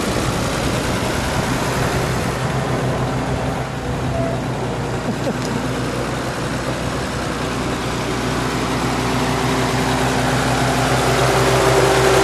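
1946 Oliver Model 70 Row Crop tractor's six-cylinder engine running steadily as the tractor drives along, a little quieter around the middle and growing louder toward the end as it comes back toward the microphone.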